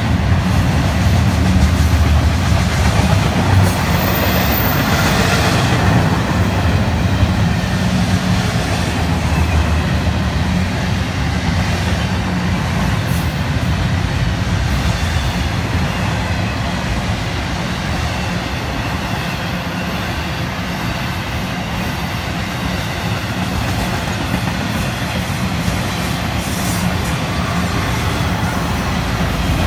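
Freight train cars rolling past: the steady rumble of a long intermodal train's wheels on the rails as double-stack container cars and trailer flatcars go by.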